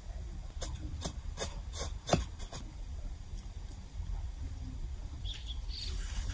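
Rubbing and scraping handling noises: about six short sharp clicks over the first two and a half seconds, then a low steady rumble.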